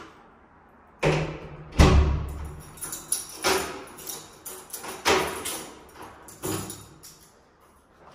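A door being worked by its handle: a series of heavy thuds and knocks, five main ones over about six seconds, each trailing off in an echo. The second, about two seconds in, is the loudest.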